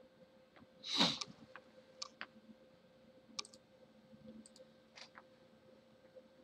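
Computer mouse buttons clicking, a dozen or so short irregular clicks, over a faint steady hum. A brief louder rush of noise comes about a second in.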